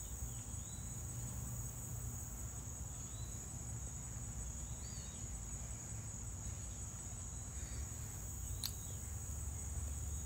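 Steady high-pitched insect chorus, a continuous unbroken trill, over a low steady rumble, with a single brief click about two-thirds of the way through.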